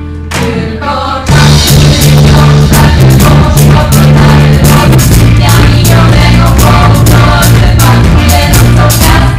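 Live band music: female voices singing together over a drum kit and guitar. After a quieter held chord, the full band with drums comes in loud about a second in and plays on with a steady beat.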